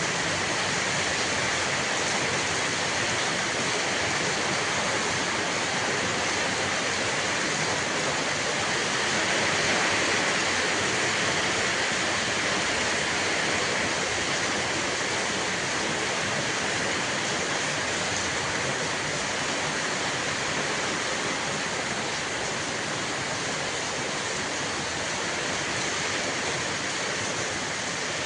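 Steady rush of heavy water, rainwater pouring and running off, swelling slightly about a third of the way through.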